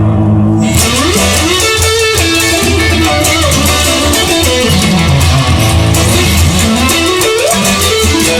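Instrumental rock passage: electric guitar playing bending, sliding notes over a steady bass line, with drums and cymbals joining about a second in.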